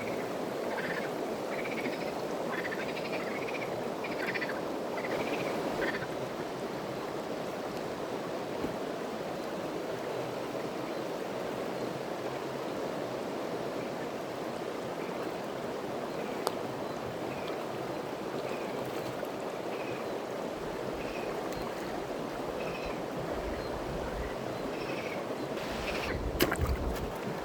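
Steady rush of flowing water, with short chirping calls over it from small animals (frogs or birds). The calls come in quick runs for the first six seconds, then spaced out. A few low bumps and clicks near the end.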